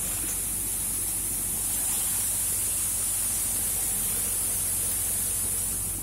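Vardhman seven-fan thresher running: a steady hiss of grain, chaff and fan air pouring over its perforated metal sieve, over the machine's low steady hum.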